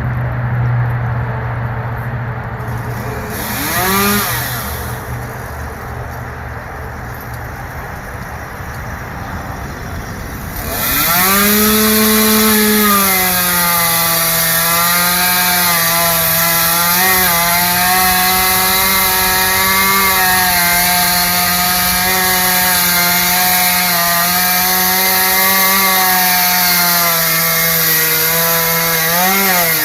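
Chainsaw running low, blipped briefly about four seconds in, then opened to full throttle about eleven seconds in and held there cutting through wood. Its pitch settles slightly lower as it bites into the cut and stays steady, with a couple of brief dips.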